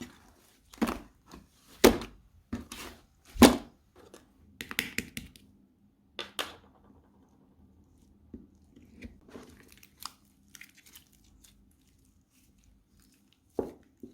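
Slime being pressed and squeezed by hand, giving a string of short sticky crackles and pops. They are louder and more regular in the first few seconds, then fainter and more scattered.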